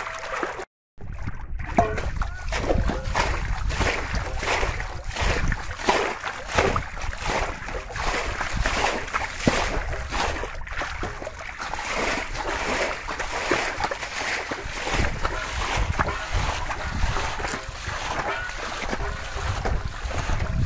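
Hands scooping and slapping through shallow muddy water and wet mud: a continuous run of splashes and squelches.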